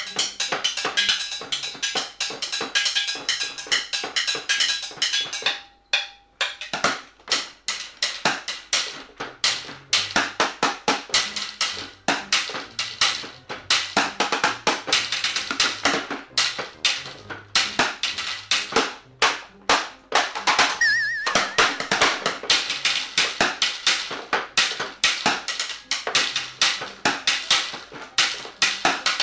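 Drumsticks playing fast drum-kit rhythms on an improvised kit of chairs, a plastic storage box and other household objects, with a short break about six seconds in.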